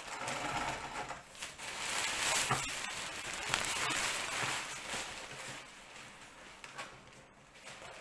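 Rustling of large lengths of lightweight kite fabric being lifted, shaken out and rearranged by hand. It is loudest in the first half and dies down after about five seconds.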